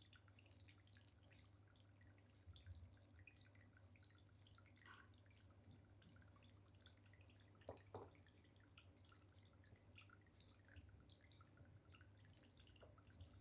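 Faint water dripping and trickling in a small homemade fountain: many small drips, with two louder ones about eight seconds in, over a steady low hum.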